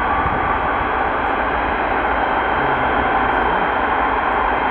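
Jet aircraft engines running with a steady, even roar.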